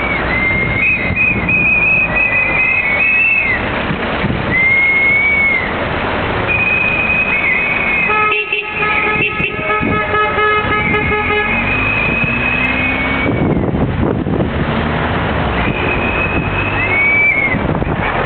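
Horns and whistles tooting again and again in short rising-and-falling blasts, with one long held horn note of about three seconds midway, over a steady background of crowd and traffic noise.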